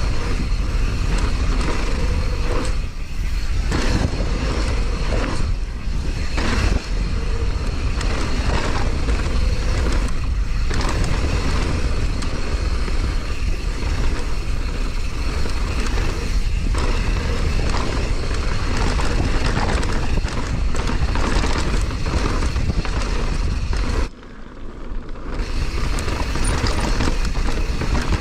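Downhill mountain bike descending a rough trail: a steady, loud rush of riding noise with frequent small knocks and rattles. About 24 seconds in the noise drops away suddenly for a second or so, then builds back up.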